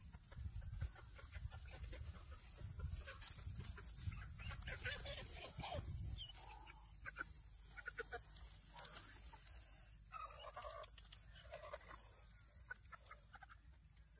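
A chicken squawking repeatedly as it is chased down and grabbed by hand. Rustling and thuds of someone running through grass come first.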